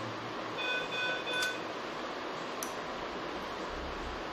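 Three short electronic beeps from operating-theatre medical equipment about a second in, over a steady hiss, with a couple of faint clicks.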